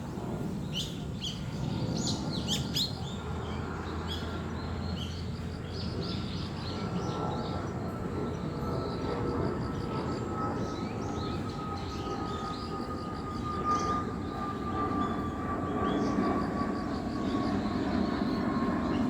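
Small birds chirping in quick high calls during the first few seconds, over a steady low rumble of a passing vehicle that grows louder toward the end, with a thin whine slowly falling in pitch from about a third of the way in.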